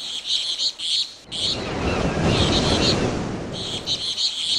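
Small birds chirping in quick bursts, with a low rumble that swells about a second in and fades near the end.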